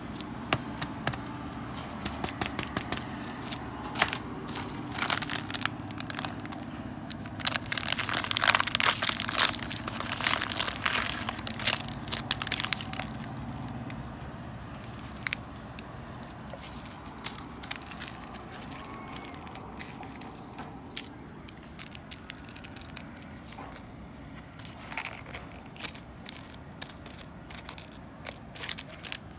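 Plastic food packaging crinkling and crackling as it is handled and opened, a freeze-dried soup packet and its plastic tray among it: dense and loudest about a third of the way in, then lighter scattered crinkles.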